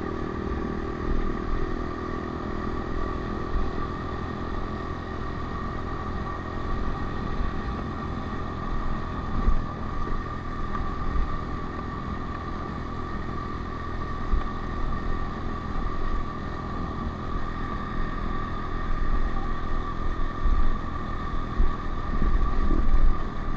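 Honda CRF125F's air-cooled single-cylinder four-stroke engine running steadily under way, with wind rumbling on the microphone.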